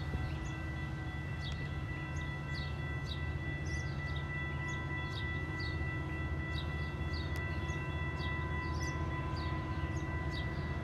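Metrolink commuter train approaching from a distance: a steady low rumble with several steady high tones over it, while a small bird chirps repeatedly, about twice a second.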